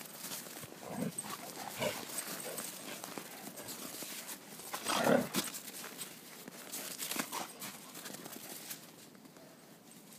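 Dogs playing in snow: panting and scattered crunching of steps in the snow, with a brief louder sound about five seconds in.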